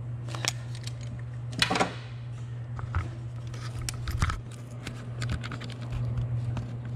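Light metallic clicks and scrapes of a valve-lash adjusting tool and a feeler gauge working a rocker arm adjuster on a Honda K20A2 cylinder head while the valve clearance is set. The clicks are scattered, with a louder scrape about two seconds in, over a steady low hum.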